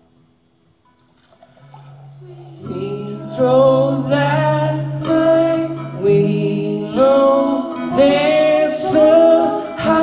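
Song with acoustic guitar. After a near-silent pause, a low guitar note is held from about a second and a half in, then a voice sings over the guitar from about three seconds in.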